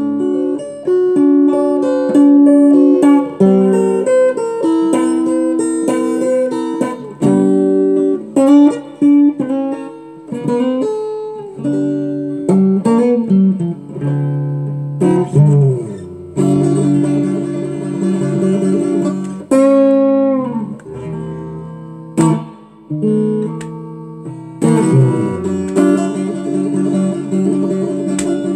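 Taylor T5z hybrid acoustic-electric guitar played solo in an improvisation: picked single-note lines with string bends, giving way to strummed chords about halfway through and again near the end.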